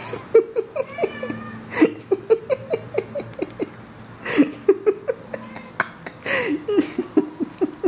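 Cats making quick runs of short, clipped calls, several a second, in four bursts, while batting at a foxtail grass stalk, with scattered light clicks.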